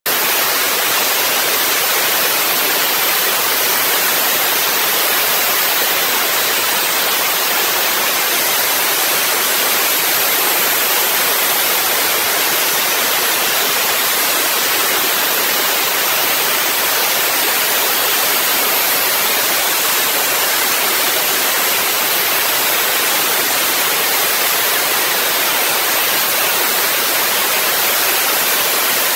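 Dry ice blasting nozzle running continuously: a loud, steady hiss of compressed air and dry ice blasting a conveyor chain clean.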